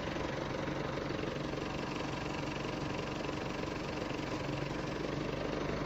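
Steady low mechanical hum of an engine running in the background, with an even hiss over it.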